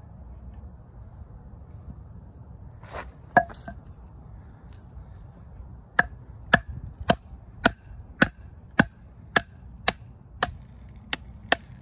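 Wooden baton striking the spine of a D2-steel fixed-blade knife, driving it down to split a standing log: one sharp knock about three seconds in, then a steady run of about a dozen knocks, two a second, from halfway.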